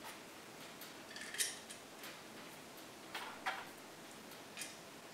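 Small metal screws ticking and clinking faintly as they are picked up and started by hand into the holes of a Demag KM motor's brake disc. There are a few light, separate clicks, the sharpest about a second and a half in and a quick pair a little after three seconds.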